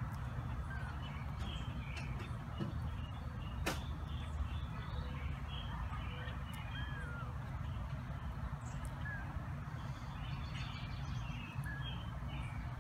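Outdoor ambience: scattered short bird chirps and calls, perhaps crows among them, over a steady low rumble, with a single sharp click a few seconds in.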